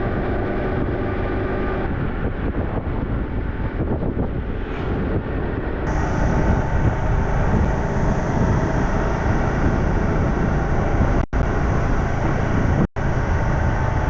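Small 125cc-class motorcycle engine running on the road with wind rushing past the microphone. The sound shifts about six seconds in, then cuts out sharply twice for an instant.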